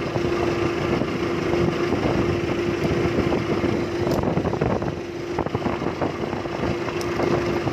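Small fishing boat's engine running steadily at an even pitch.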